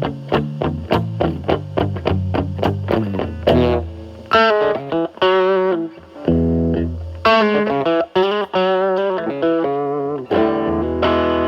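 Electric guitar, a Telecaster played through a Fender Pugilist distortion pedal into a Marshall Valvestate amp's clean channel, with the guitar's volume rolled back to clean up the drive. A fast run of picked single notes, about five a second, gives way to sustained notes with vibrato and ringing chords.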